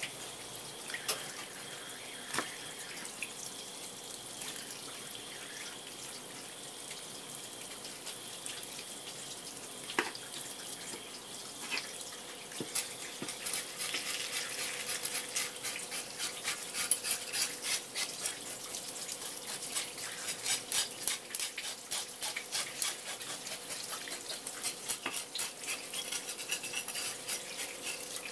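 Tap water running steadily onto a horse mackerel on a wooden cutting board, with a few sharp clicks in the first half. From about halfway, a knife scrapes rapidly along the wet fish, taking off its scales.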